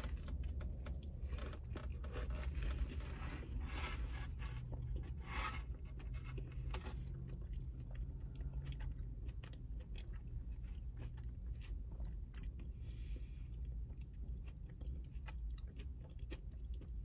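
Close-up chewing of a mouthful of cabbage casserole: soft, wet mouth clicks and smacks, busiest for the first seven seconds or so and sparser after, over a steady low hum.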